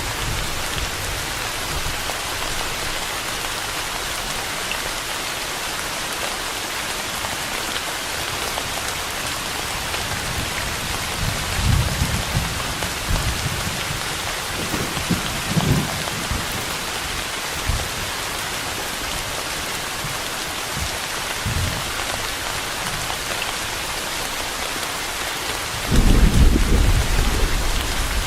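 Steady rain falling, with low rolls of thunder: a few brief rumbles in the middle and a louder, longer one near the end.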